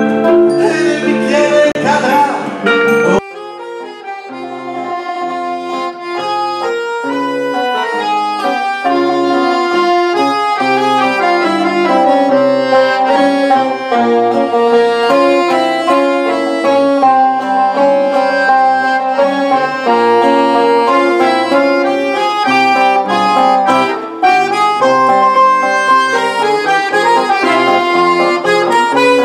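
Live acoustic music breaks off abruptly about three seconds in. A piano accordion then plays an instrumental melody, growing louder over the next few seconds and then holding steady.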